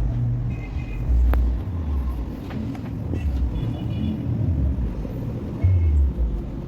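A car's steady low rumble, with uneven swells that sound like wind buffeting the microphone. A few faint short high tones sit on top.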